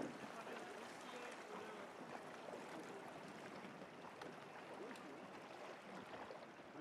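Soft, steady sea-water noise as calm water laps around a boat, with faint distant voices.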